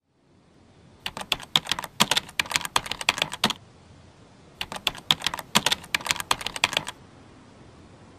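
Rapid typing key clicks in two bursts of about two and a half seconds each, a second apart, over a faint steady hiss.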